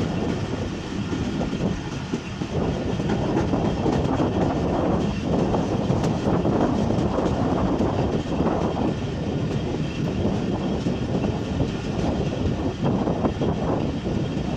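Pakistan Railways passenger coach running at speed, a steady rumble of wheels on the rails, heard from an open window of the moving train.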